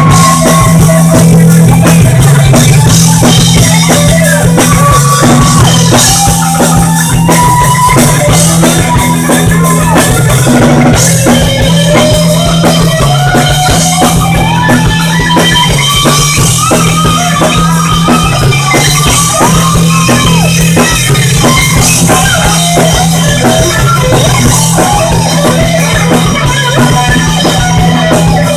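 Live rock band playing loudly without vocals: an electric guitar plays a lead line with bent, gliding notes over bass guitar and a drum kit.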